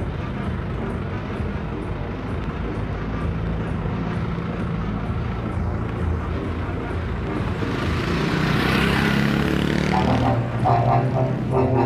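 Touring bus with JGB Ibiza bodywork pulling away and driving close past, its diesel engine running under load with a rising hiss as it goes by about eight seconds in. A steady droning tone with several pitches starts about ten seconds in.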